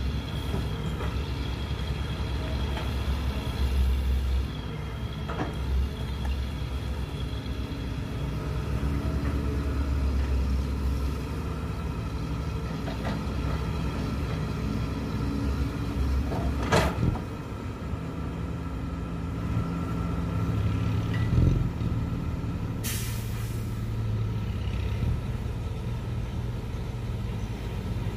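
Cat 322C hydraulic excavator's diesel engine running under load while digging and loading dirt into a dump truck, its pitch shifting up and down with the work. A single sharp knock near the middle and a short hiss of air about two-thirds through.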